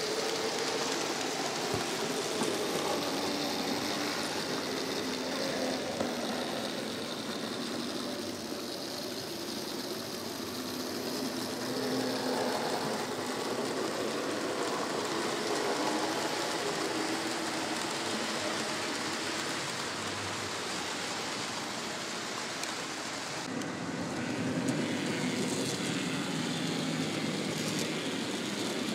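N gauge model trains running on the layout: the hum of the locomotives' small electric motors and the rumble of wheels rolling on the track, steady throughout with a change in the sound about 23 seconds in.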